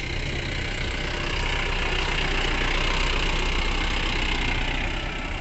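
Mahindra Bolero Camper pickup's diesel engine idling, a steady low running note.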